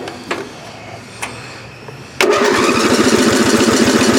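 A few light clicks, then about two seconds in an 11-horsepower lawn tractor engine is cranked by its electric starter: a loud, steady, fast-pulsing churn that does not catch. This is a hot-start failure, which the owner suspects comes from a faulty ignition coil.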